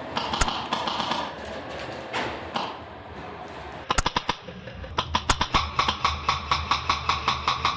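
Airsoft guns firing rapid strings of sharp shots, starting about four seconds in and going on at several shots a second; before that, a muddle of indistinct background noise.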